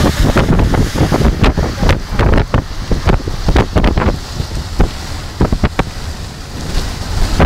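Hailstones striking hard and fast in a hailstorm, a dense, irregular clatter of sharp impacts, with strong wind buffeting the microphone.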